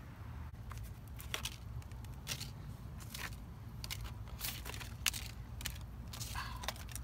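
Irregular crunching and crackling clicks over a steady low hum.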